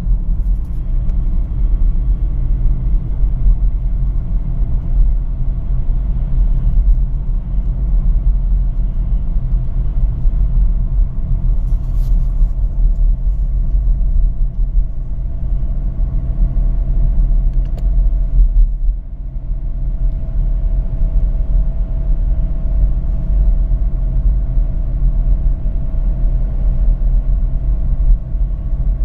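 BMW E91 318i's four-cylinder petrol engine running steadily at an even, low rumble, dipping briefly in loudness about two-thirds of the way through.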